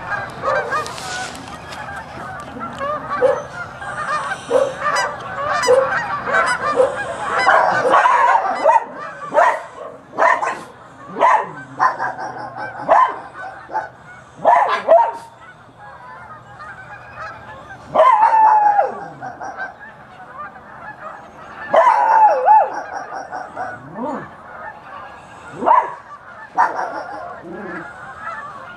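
A flock of geese honking, many calls overlapping at first and then thinning to separate loud honks every second or two, with dogs barking among them.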